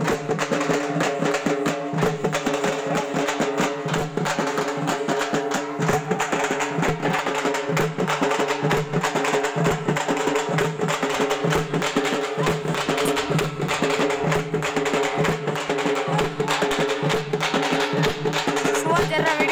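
Dappu frame drums beaten with sticks in a fast, dense rhythm, over a steady held tone.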